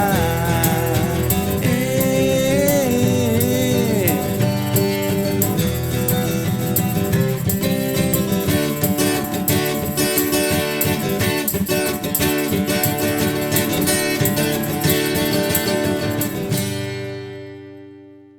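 Instrumental outro of an acoustic rock song, with acoustic guitars strumming chords under a gliding melody line in the first few seconds. Near the end the music fades out, leaving a final chord ringing away.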